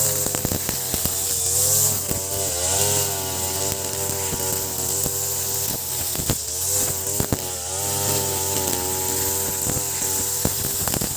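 Ogawa BG330 33cc two-stroke brush cutter running with a nylon trimmer line, its engine speed dipping and recovering several times as the line cuts into grass. A few sharp clicks sound through it.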